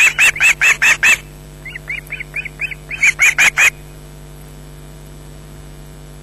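Ospreys calling: a rapid series of high, shrill whistled notes, about five a second, that stops after about a second. A few fainter notes follow, then another short loud run around three seconds in, after which the calling stops.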